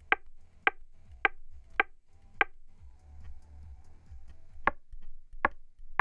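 Short beeps from a GravaStar Mars Pro Bluetooth speaker as its volume button is pressed repeatedly: five evenly spaced about half a second apart, then after a pause a few more, further apart.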